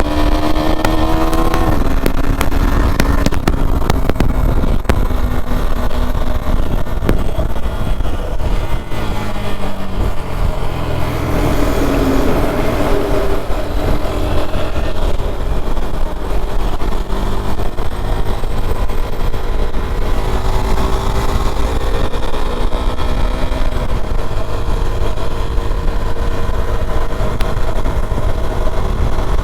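KTM Duke 390's single-cylinder engine under way, its pitch rising as it accelerates and dropping at an upshift about two seconds in and again about two-thirds through. A heavy wind rumble sits under it.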